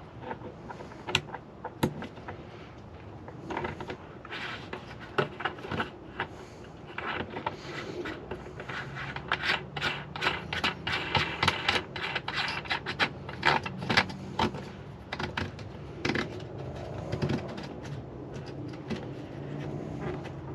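Irregular clicking, tapping and light scraping of small plastic and metal parts being handled as a switch is fitted into a hole in a mounting panel, with a quick run of clicks in the middle.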